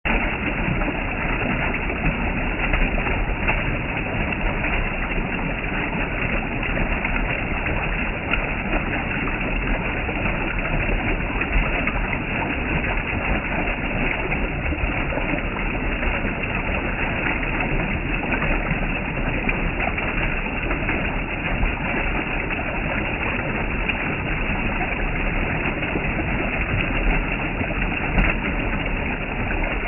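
Rushing stream water heading to a waterfall, an even, unbroken noise at a steady level.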